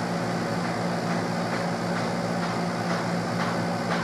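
A steady machine hum with a constant low drone, like a fan or air-conditioning unit running, with a few faint light taps now and then.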